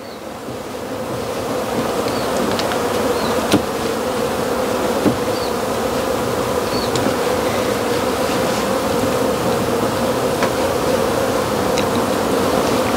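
Honey bees buzzing steadily as a crowd, growing louder over the first two seconds and then holding, drawn by the smell of honey being extracted. A few short clicks sound through the hum.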